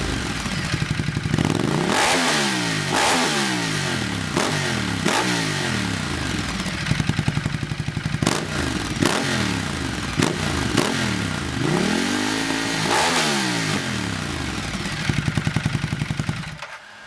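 Ducati Multistrada 1200S L-twin engine through a full Termignoni exhaust being blipped again and again, each rev rising quickly and falling back. Sharp pops and cracks sound between the blips. It stops shortly before the end.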